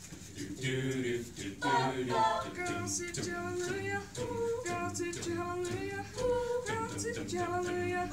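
High-school a cappella choir of mixed voices singing close pop harmonies without words being picked out, in short notes that follow one another quickly.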